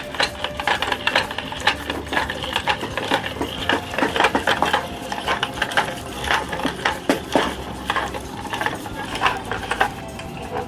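Electric meat grinder running, its motor humming steadily while crunchy ice cream cones are crushed, giving many irregular sharp crackles. The crunching stops near the end.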